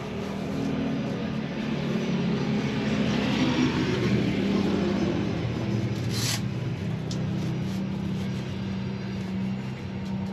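A vehicle engine running steadily, growing louder over the first few seconds and then holding. A short sharp click about six seconds in.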